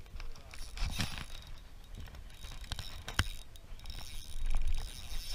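Shimano Nasci 1000 spinning reel being cranked, a soft mechanical whirr with fine ticking, over wind buffeting the microphone. Two sharp knocks, about a second in and again about three seconds in.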